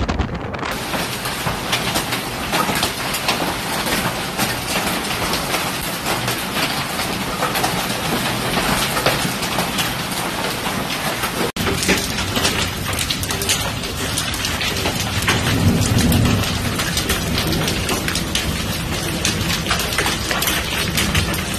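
Hailstones falling and pelting the ground, a dense steady clatter of small impacts. A sudden cut about halfway through switches from hail landing on grass to hail hitting concrete pavement, with a louder low rumble a few seconds later.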